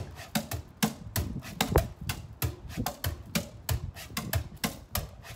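Cajón played alone in a steady groove: deep bass strokes about twice a second, with sharper slaps and ticks in between.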